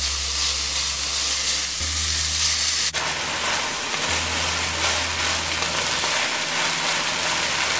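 Saltfish with onion, peppers and garlic sizzling as it fries in a nonstick wok, stirred and pushed around with a wooden spatula. The sizzle breaks off abruptly for an instant about three seconds in and carries on, over a low steady hum.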